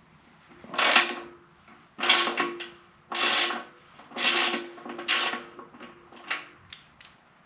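Socket ratchet wrench ratcheting on its back-swings as it loosens an air compressor tank's drain valve. There are about five half-second ratcheting runs, then a few single clicks near the end.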